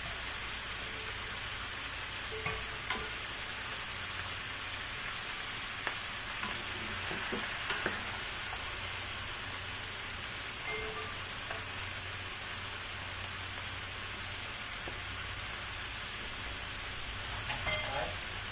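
Chicken pieces sizzling steadily in a hot pan as broth is ladled over them, with a few light clinks of a metal ladle.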